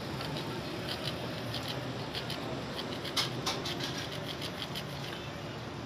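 Stiff brush scrubbing grease and grime off a motorcycle's front sprocket and chain area: quick scratchy strokes, a few a second, with two sharper clicks about three seconds in.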